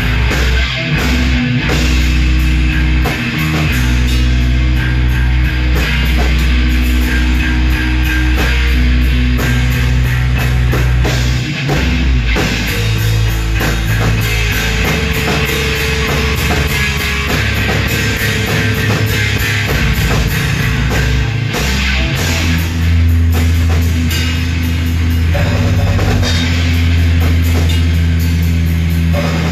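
Heavy metal band playing live: electric guitars holding low notes over fast, steady drum-kit beats, the chords shifting every few seconds.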